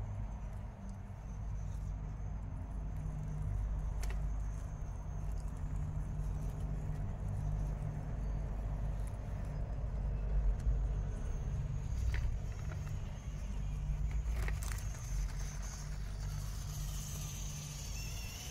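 Small electric 1/18-scale RC rock crawlers running as they creep over rocks and gravel, over a steady low rumble, with a few sharp clicks of the trucks knocking against stone.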